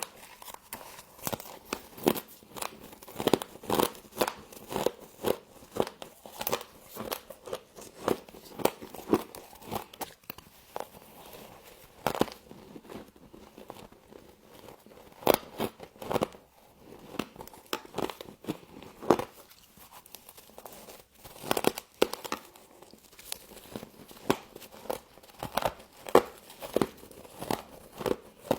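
Frost crunching as it is bitten and chewed, in many quick, crisp crackles with short lulls between bites.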